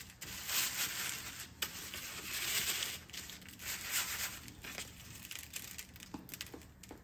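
Panko breadcrumbs crunching and rustling as a raw chicken breast is pressed and rubbed into them with gloved hands on a paper plate, in uneven scratchy bursts with a sharp click about one and a half seconds in.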